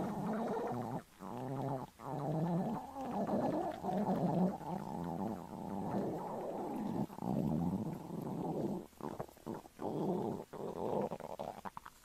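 Stomach growling: long gurgling rumbles that waver up and down in pitch, broken by a few short pauses.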